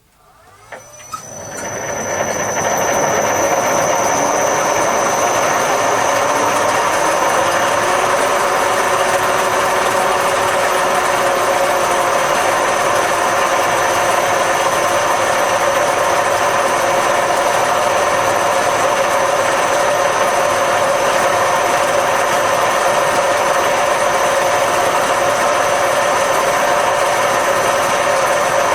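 A workshop machine tool starting up: its motor spins up over the first few seconds with a rising tone that settles about eight seconds in, then runs steadily with a high whine.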